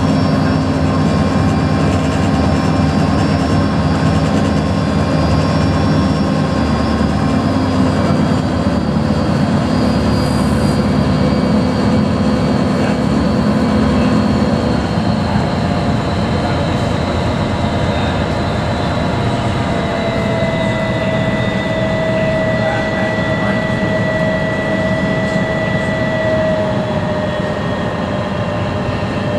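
Steady engine and hull noise inside the cabin of a high-speed passenger ferry under way. The low engine hum thins out about halfway through as the boat comes in toward its pier, and a thin whine rises over the noise near the end.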